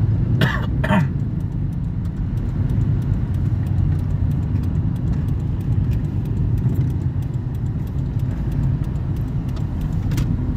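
Car engine and road noise heard from inside the cabin while driving: a steady low rumble, with two brief sharp noises about half a second in and another near the end.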